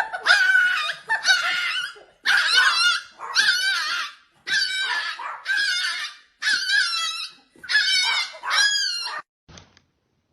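A dog giving a run of about nine high-pitched, wavering cries, roughly one a second, that stop about a second before the end.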